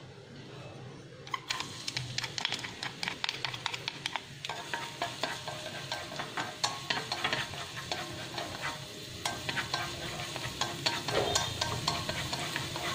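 Minced garlic and chili sizzling and crackling in hot cooking oil in a wok while being stirred with chopsticks. The sizzle starts about a second and a half in, as the garlic and chili go into the oil.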